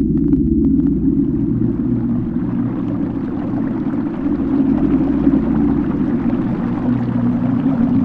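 Rushing water rising about a second in over a deep, steady drone.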